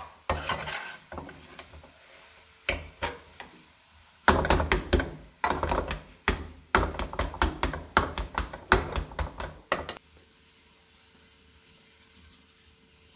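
Spatula scraping and stirring thick besan halwa in a steel wok, a run of short clattering strokes that is busiest in the middle and dies down near the end.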